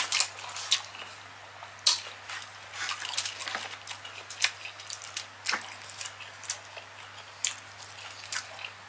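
Close-miked wet eating sounds: mouth smacks and chewing of saucy seafood, heard as irregular sharp wet clicks about one or two a second. A faint steady low hum lies underneath.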